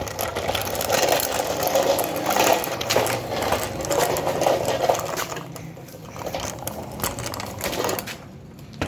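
A rapid mechanical rattling. It is louder for about the first five seconds, then fainter, and stops about eight seconds in.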